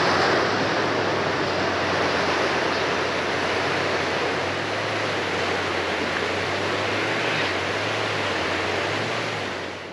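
Surf breaking on a rocky shore and beach: a steady rushing wash of waves that drops away just before the end.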